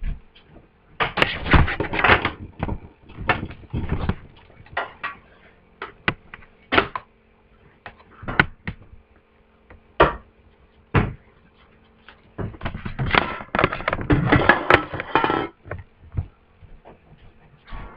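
Handling noise: scattered knocks and clicks, with two longer stretches of rustling and scraping, over a faint steady hum.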